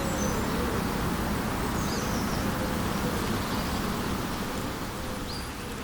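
Outdoor ambience by still water: a steady background hiss with an insect buzzing, its pitch wavering gently. A few brief, faint, high bird chirps come through, about two seconds in and again near the end.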